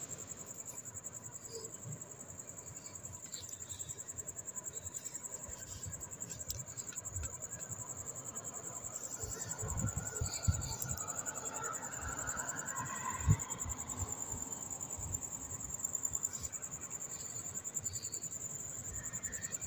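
Socket wrench on a long extension tightening the camshaft bearing-cap bolts of a Toyota 2TR-FE cylinder head: faint tool clicks and a few low knocks, the sharpest about thirteen seconds in, under a steady high-pitched trill.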